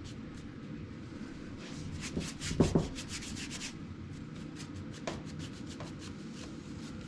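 Stain being rubbed over the wooden boards of a Gerstner machinist tool chest, with a run of quick strokes about two seconds in and a single knock in the middle of them.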